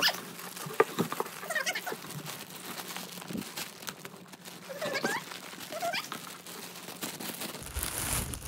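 Plastic wrapping crinkling and rustling as it is pulled off a plush toy, with a few short, high whines from a Jack Russell terrier.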